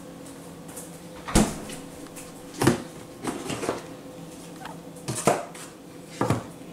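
Plastic containers and dishes being handled on a table: four sharp knocks and some lighter clatter between them, over a steady low hum.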